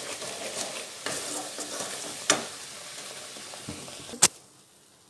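Wooden spatula stirring and scraping thick, bubbling coconut-jaggery filling in an aluminium kadai, over a steady sizzle, as the filling is cooked down until it comes together without sticking. Two sharp knocks stand out, the louder one near the end, after which the sizzle drops to a faint hush.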